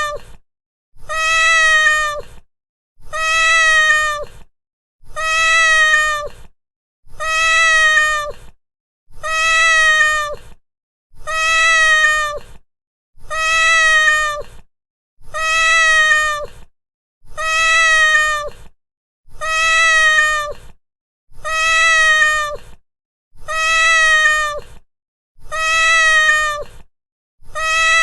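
Domestic cat meowing: the same single meow repeated about every two seconds, each one a drawn-out call that drops in pitch at the end.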